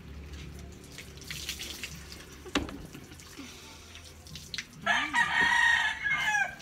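A rooster crows once, loudly, for about a second and a half near the end. Under it, water poured from a plastic dipper splashes over a wet dog being rinsed, with a single sharp knock a little after two and a half seconds in.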